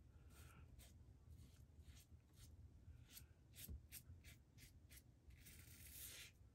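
Faint scrape of a Merkur 39c slant safety razor cutting stubble along the jawline through lather, in a quick run of short strokes with one longer stroke near the end.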